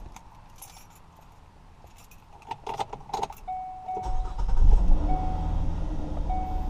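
Keys rattling and clicking in the ignition, then the 2013 Chevrolet Impala's 3.6-litre V6 cranks and starts about four seconds in, flaring briefly before settling into a steady idle. Dashboard warning chimes beep at regular intervals, about once a second, alongside it.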